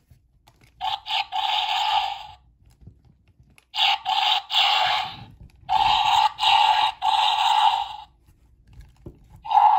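Jurassic World Dominion Therizinosaurus action figure playing its electronic dinosaur roar and growl effects through its small built-in speaker, set off by the button in its tail. Four tinny bursts with short pauses between them, the last starting near the end.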